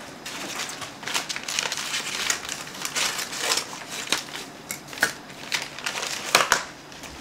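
Brown paper mailer envelope crinkling and crackling as it is cut open with scissors, an irregular run of snips and rustles. Just past six seconds there is a louder rustle as the emptied envelope is lifted and shaken.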